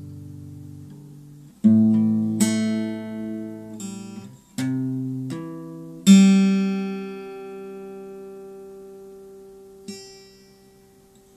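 Guitar chords struck a handful of times, the loudest about six seconds in and left to ring out and fade slowly, with a light touch near the end.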